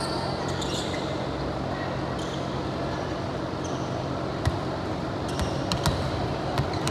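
Steady background hum and noise of a sports court during play, with a few short sharp taps or squeaks in the second half.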